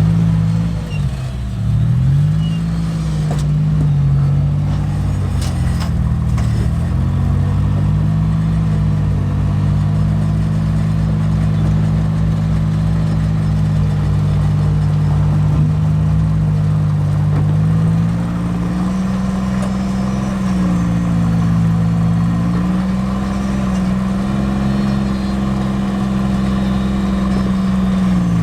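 Engine of an off-road rock-crawling truck running at low speed, revs rising and falling as it is driven over the trail, with the revs stepping up about two-thirds of the way through.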